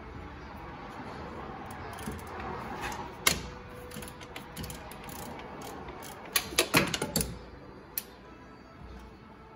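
Clicking and metallic clinks of a hand ratchet and socket being worked on an alternator mounting bolt, with a quick cluster of louder knocks about six to seven seconds in.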